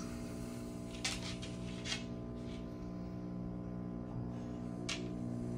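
Grand Teton pellet stove running with a steady motor hum from its fans. A few sharp clicks, about four, sound as the auger drops pellets into the burn pot.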